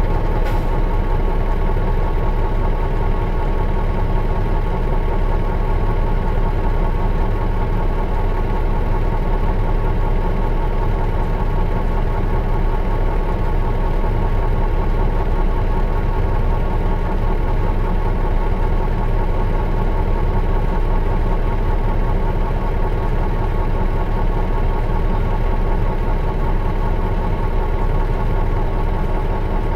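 Mitsubishi Fuso Aero Bus KL-MS86MP diesel engine running steadily, heard from inside the coach, with an even hum whose pitch does not change. A short click comes about half a second in.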